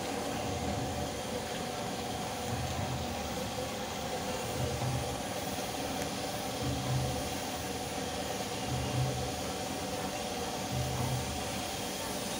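Compressed-air paint spray gun hissing steadily as it sprays, over a machine hum and a low throb that repeats about every two seconds.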